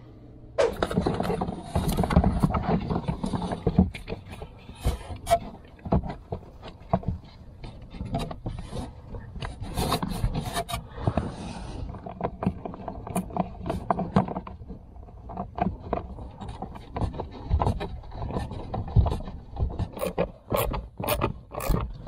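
Irregular scraping, rubbing, knocking and clicking of a new plastic blower motor being worked up into its housing under a 2003 Chevrolet Trailblazer's dashboard and bolted in, with a run of sharper clicks near the end.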